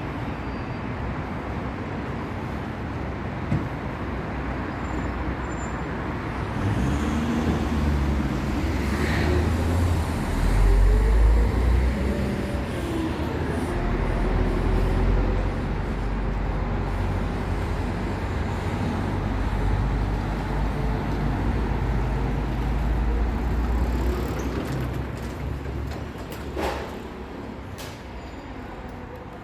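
Motor vehicle engine running over steady road and traffic noise, the low rumble growing louder about seven seconds in and easing off near the end.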